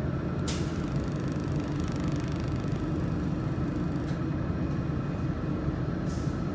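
Laser welding machine with a rotary chuck running with a steady low hum. About half a second in, a hiss from the welding head starts sharply and stops about four seconds in, with a shorter one near the end: the weld pass around the small tube.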